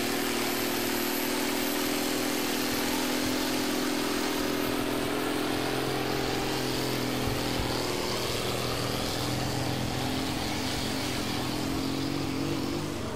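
John Deere farm tractor's diesel engine running steadily at high power under heavy load, dragging a weight sled in a tractor pull.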